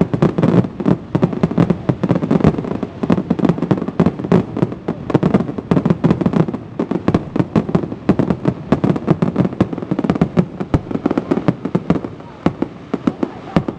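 Aerial fireworks shells bursting in rapid, dense succession, many loud bangs and crackles overlapping with hardly a gap, thinning out near the end.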